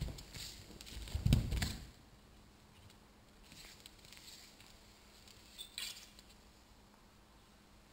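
A heavy thump on a wooden floor about a second and a half in, as a person drops to his knees under a wrist lock, among shuffling footsteps and cloth rustling. A sharp knock comes near six seconds in.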